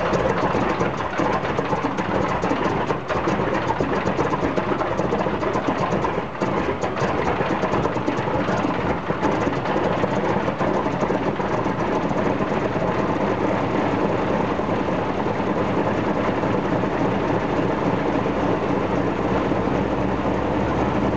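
The Ilyushin Il-14's Shvetsov ASh-82T fourteen-cylinder twin-row radial engine, cowlings removed, running on a ground run-up with the propeller turning. It is a little uneven in the first few seconds, then runs steadily.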